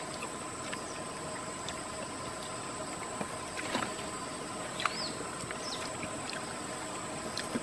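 Steady outdoor background hiss with a thin, high, unbroken tone, a few faint clicks, and two short chirps about five seconds in.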